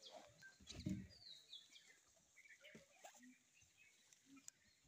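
Birds chirping faintly with short, falling calls, and a low thump about a second in.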